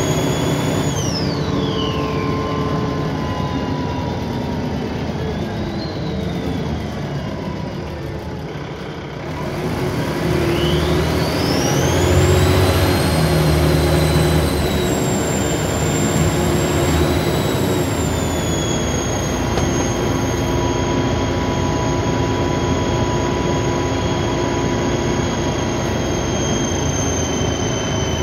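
Dennis Trident 2 double-decker bus's diesel engine heard from on board, with a loud high turbo whine. The whine falls in pitch about a second in as the bus eases off and dies down to a lull, then climbs steeply from about ten seconds in as the bus pulls away, and holds high and steady through the rest over the engine rumble.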